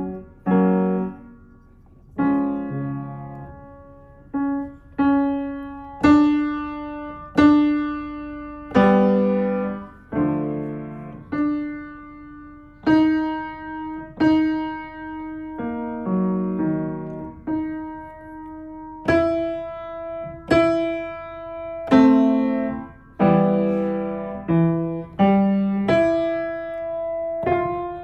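Piano keys struck by a toddler exploring the instrument: single notes and small chords pressed one at a time, a new one every second or two, each left to ring and fade before the next, with no steady tune or rhythm.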